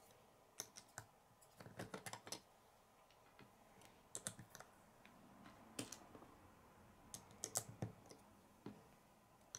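Faint, scattered clicks of small plastic Lego bricks being handled and pressed onto a model, some coming in quick little clusters.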